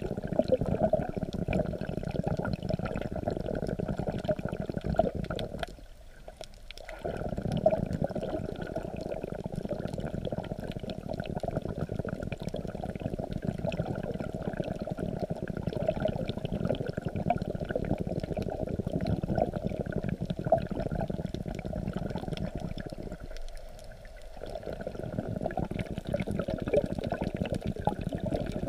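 Sea water heard through a camera held just under the surface: a steady muffled rushing with fine crackles, dropping away briefly twice, about six seconds in and again near twenty-four seconds.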